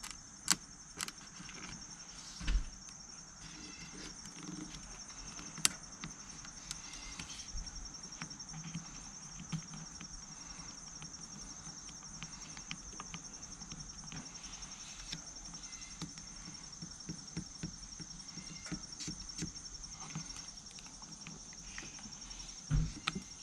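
A steady, high, fast-pulsing insect trill, like crickets, runs throughout. Scattered light clicks and two dull thumps, one about two seconds in and one near the end, are heard over it.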